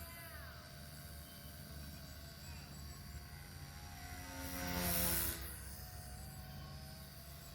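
XK K110S micro RC helicopter in flight, its electric motor and rotors giving a steady whine that wavers in pitch, swelling louder with a rush of rotor noise as it passes close about five seconds in.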